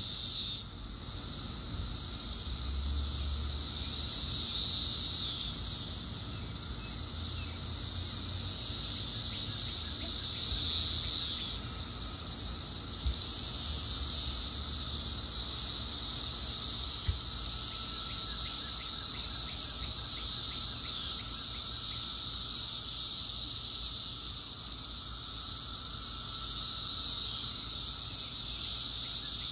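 Chorus of thousands of Brood X periodical cicadas in a tree: a dense, high-pitched buzzing that swells and fades in waves every few seconds, over a fainter, lower steady drone.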